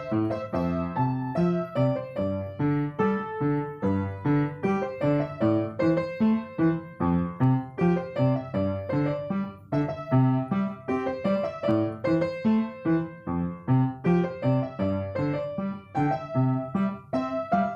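Piano playing: a melody over lower accompanying notes, at an even moderate pace.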